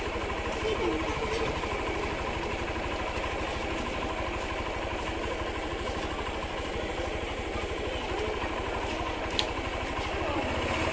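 Motorcycle engine idling steadily, with a fast, even beat of firing pulses, while the bike stands still. A single sharp click comes about nine seconds in.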